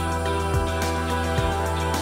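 Instrumental background music with held tones over a soft, steady beat.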